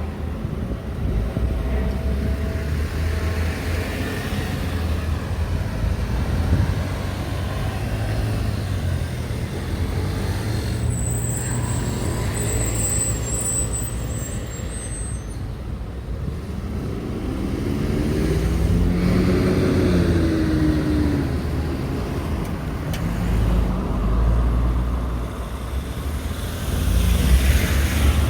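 Road traffic: car and truck engines running past steadily, with one vehicle's engine rising and then falling in pitch as it goes by about two-thirds of the way in.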